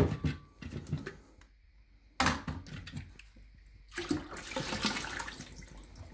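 Water poured out of a plastic blender jug, splashing into a stainless steel sink from about four seconds in, after a single sharp knock about two seconds in.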